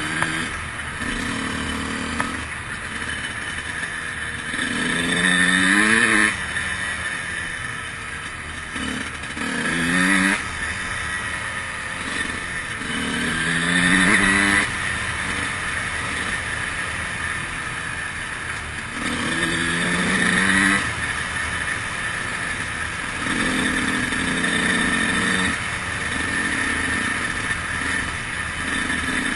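2003 Honda CR125's two-stroke single-cylinder engine being ridden, revving up in four loud bursts that each rise in pitch, then running at steadier revs near the end.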